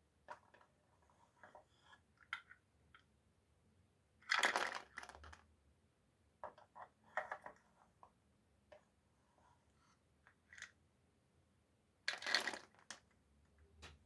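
Small flat plywood puzzle pieces clattering together as they are tipped out of a wooden drawer, in two loud spills about four seconds in and again about twelve seconds in. Between them come light wooden clicks and taps from the drawers and pieces being handled.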